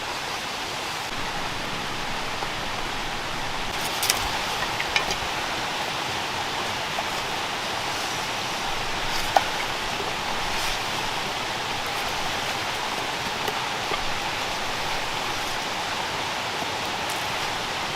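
Steady rainfall, an even hiss with a few sharper drop ticks scattered through it.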